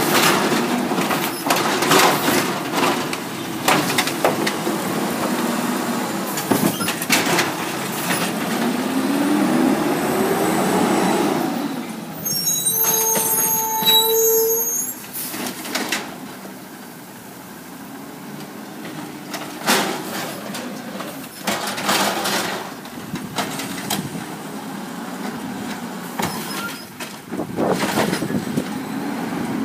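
Automated side-loader garbage truck at work: repeated clanks and bangs as its arm dumps a cart, the diesel engine revving up as the truck pulls away, and a brief squeal about halfway through. More knocks come near the end.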